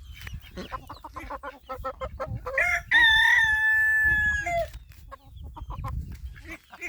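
Chickens clucking in quick short notes, then a rooster crowing once, a long held call about two and a half seconds in that is the loudest sound, followed by more clucking.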